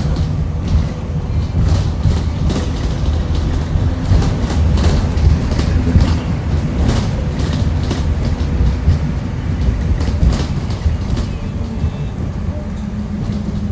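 Ride noise inside a 2018 Blue Bird Vision school bus on the move: a steady low rumble from engine and road, with frequent rattles and knocks from the body and windows over bumps. Near the end it settles into a steadier hum.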